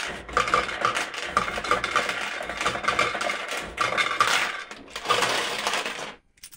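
Fruit machine paying out coins into its metal tray, a rapid run of clinking coin drops that stops about six seconds in.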